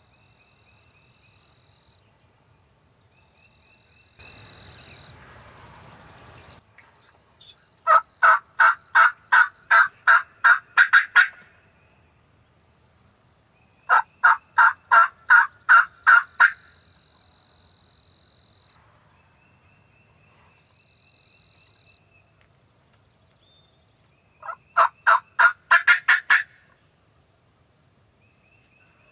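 Turkey yelping: three runs of about ten evenly spaced, loud yelps each, several seconds apart.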